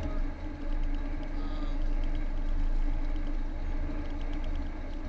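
A car's engine and tyre noise heard from inside the cabin while driving at road speed: a steady, low drone.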